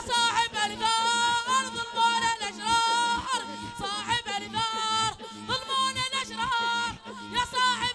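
A chorus of boys chanting a Shia devotional chant (latmiya) in high voices into microphones. The melody moves in short, repeated phrases over an even rhythmic beat.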